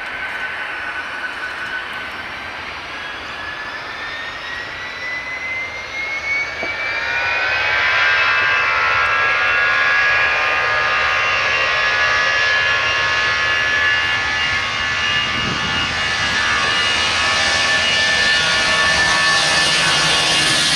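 Airbus A320-232's twin IAE V2500 turbofan engines spooling up for takeoff: a whine that rises in pitch over the first eight seconds or so, then the engines settle at takeoff thrust, louder and steady, as the jet accelerates down the runway.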